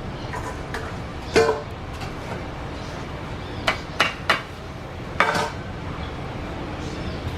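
Young macaw giving two short harsh calls, with three sharp taps in quick succession between them, over a steady background rumble.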